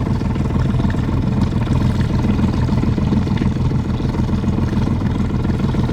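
Motorboat engine running steadily, a low even drone with no change in pitch.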